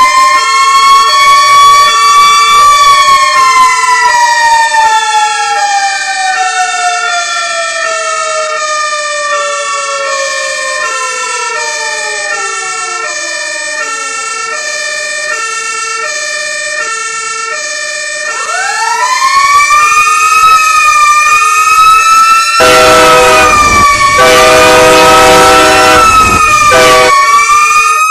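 Layered fire-truck sirens. A wailing siren rises and then falls slowly in pitch over a repeating two-tone hi-lo siren; about two-thirds of the way in, a second siren winds up and wavers. Near the end a loud horn blast sounds for about four seconds, with a short second blast after it.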